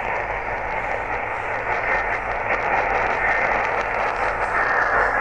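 Radio static from a weak, distant signal heard through a receiver: a steady hiss in a narrow, muffled audio band.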